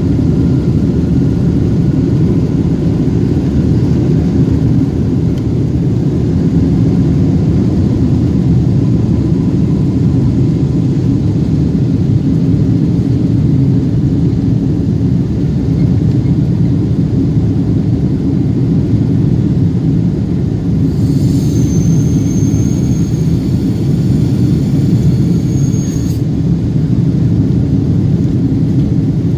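Boeing 777-200 cabin noise: a steady, loud low rumble of the jet engines and airflow heard from inside the cabin. A faint high tone joins for about five seconds near the end.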